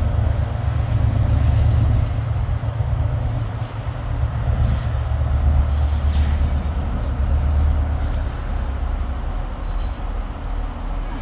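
Irish Rail 071-class diesel-electric locomotive 081, its EMD 12-cylinder two-stroke diesel engine running with a deep steady rumble as it pulls away. The rumble fades gradually over the second half, while a faint high whine slowly drops in pitch.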